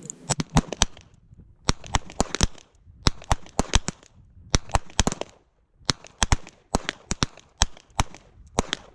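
Revolver gunshots on an open range: many sharp cracks in quick clusters of several shots, with short pauses between the clusters.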